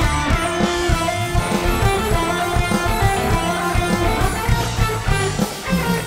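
Music with a steady beat.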